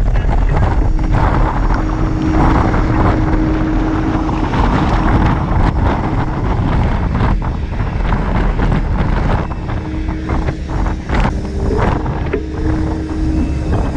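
Excavator engine running under load as its bucket scrapes soil along the bottom of a trench, with a steady whine that comes and goes and a few scraping knocks. Wind buffets the microphone.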